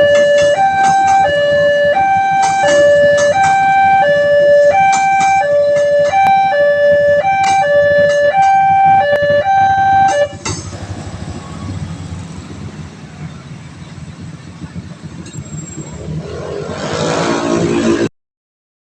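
Railway level-crossing warning alarm sounding an electronic two-tone signal, a higher and a lower tone alternating, that stops abruptly about ten seconds in. After that, a rumble of road vehicles remains and grows louder just before the sound cuts off.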